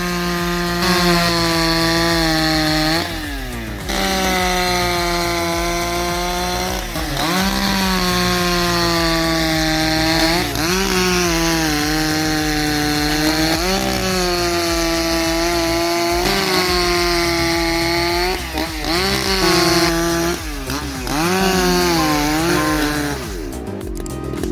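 High-revving saw engine running at full throttle while cutting through a large log. Its pitch sags under load and recovers about every three seconds as the cuts go on.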